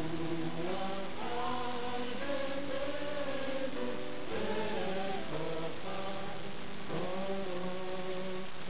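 A choir of men singing a slow song with long held notes.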